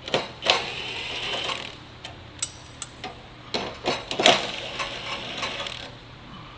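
Socket ratchet clicking in two spells while loosening the 10 mm bolts that hold the exhaust valve and brackets on a muffler, with a few sharp metal clinks.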